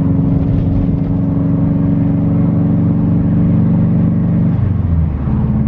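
Subaru WRX's turbocharged flat-four engine pulling steadily in third gear, its pitch rising slowly, then dropping sharply near the end and settling to a lower steady note. The freshly installed replacement transmission is driving without clunking.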